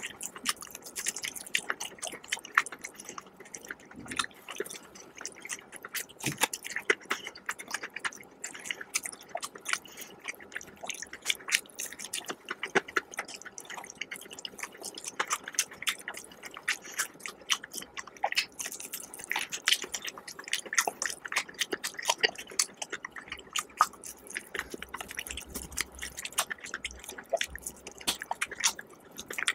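Close-miked chewing of crispy Popeyes fried chicken: repeated bites and chews make a dense run of small crackles, clicks and wet mouth sounds.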